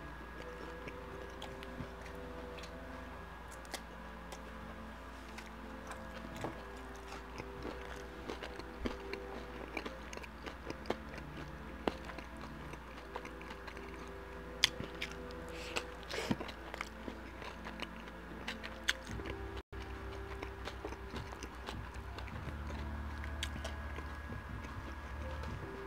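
Close-miked chewing and mouth sounds of a person eating a fast-food sandwich, with scattered wet smacks and clicks.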